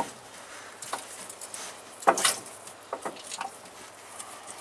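A handful of short metallic clicks and knocks from hand work on an opened tractor gearbox, the loudest a little after two seconds in.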